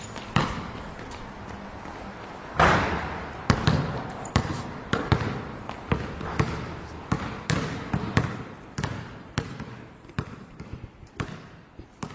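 Basketball being dribbled on a court: from a few seconds in, single bounces come steadily about every half second to second.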